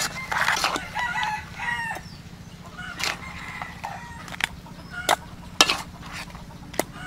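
A rooster crowing in the first two seconds. Sharp clinks follow a few times, a serving utensil striking a metal plate as the crab and noodles are dished out.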